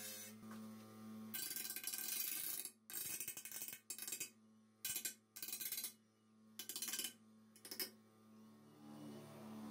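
Bench grinder motor running with a steady hum while a rusty steel hoe blade is pressed against its grinding wheel in a series of short, harsh grinding passes, about seven of them, grinding off rust; the passes stop near the end, leaving the hum.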